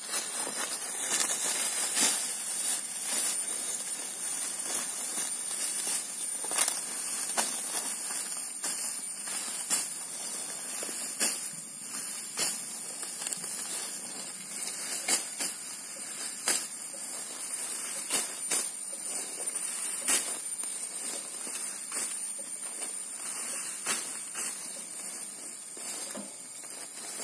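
Grass and undergrowth rustling and crackling with irregular sharp snaps as fodder grass is cut by hand with a sickle, over a thin, steady high-pitched whine.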